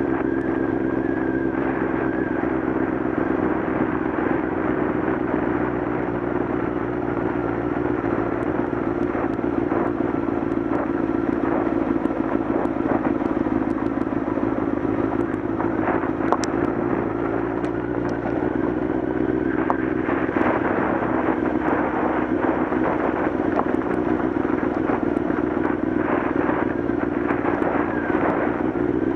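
Motorcycle engine running at a steady pace on a gravel road, with loose stones crackling and clattering under the tyres.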